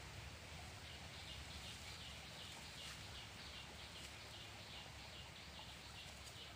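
Faint bird calls: a short high chirp repeated over and over, about three times a second, over a steady low background hum.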